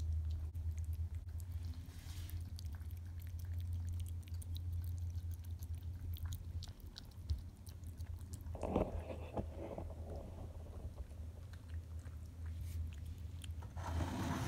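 A cat chewing and licking chunks of wet food from a stainless steel bowl, with small wet clicks and smacks that cluster more loudly about nine seconds in and near the end, over a steady low hum.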